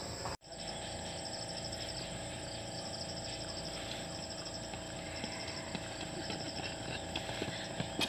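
Insects chirping steadily in the grass, a fast, even pulsing that runs on after a brief gap near the start.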